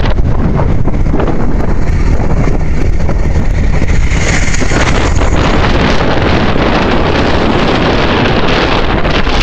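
Heavy wind buffeting the microphone of a camera travelling at road speed, with a low rumble of vehicle and road noise underneath. The rush is loud and steady, with a brief hissier patch about four seconds in.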